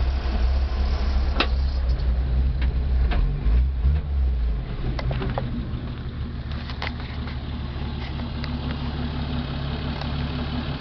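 1955 Willys pickup's engine idling steadily, heard from the cab, with a few sharp clicks from the controls. The low rumble eases off a little about four and a half seconds in.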